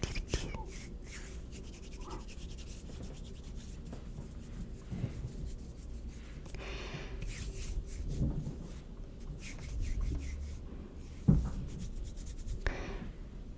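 Hands rubbing together close to the microphone: soft, uneven friction sounds with a few louder swells.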